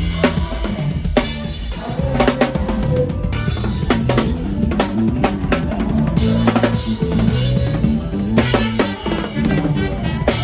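A live band playing, led by a drum kit: bass drum, snare and rimshot hits over a bass line, at a sound check.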